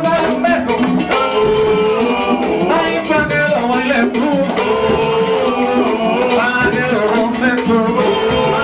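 Live Latin band playing a fast groove: congas and maracas keep a dense rhythm under held melody lines.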